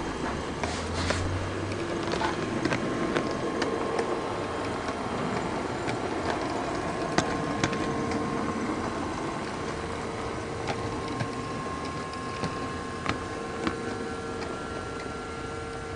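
HO-scale (1:80, 16 gauge) model train running along its track, heard from a camera riding on the train: a steady mechanical running hum with a faint whine, and scattered sharp clicks of the wheels over rail joints and points.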